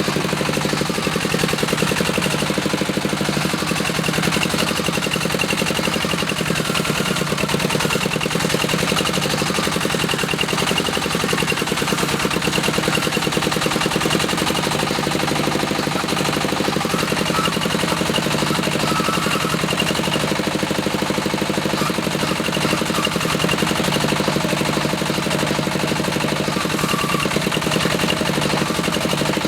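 Diesel engine of a small bore well drilling rig running steadily under load, with a rapid, even knocking beat over a constant hum.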